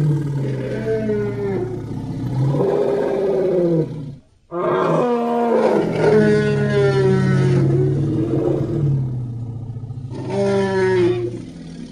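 Creature roar sound effects: long, drawn-out pitched roars that bend up and down. One breaks off about four seconds in, a longer roar follows half a second later, and another starts near the end.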